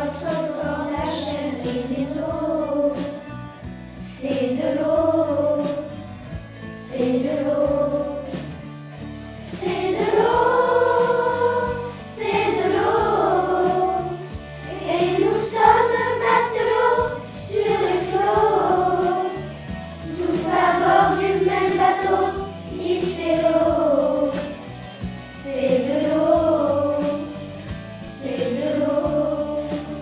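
A choir singing a song over musical accompaniment, in phrases about two seconds long with short breaks between them.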